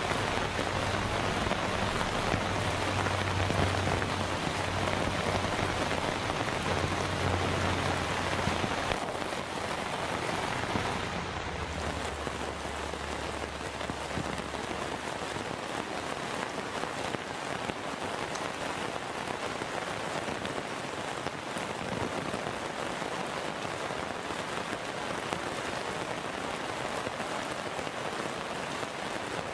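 Heavy monsoon rain pouring down steadily, somewhat louder for the first ten seconds or so with a low hum underneath, then easing slightly.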